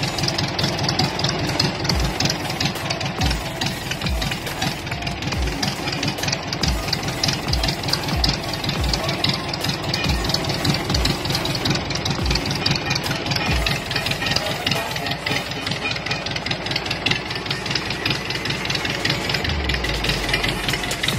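Isuzu 4BE1 four-cylinder diesel engine running steadily on a test stand after its overhaul, with the even, rapid clatter of a diesel at idle. A low thump recurs roughly once a second under it.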